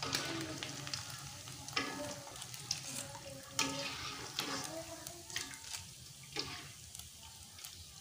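Shrimp peyek fritters sizzling in hot oil in a wok. Metal utensils scrape and click against the pan several times as the fried pieces are lifted out into a wire strainer.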